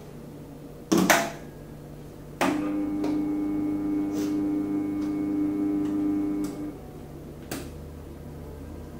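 Switches on a DBF-1000 band sealer's control panel clicking. After the second click the machine's motor starts with a steady hum for about four seconds, then runs down and stops, and another click follows.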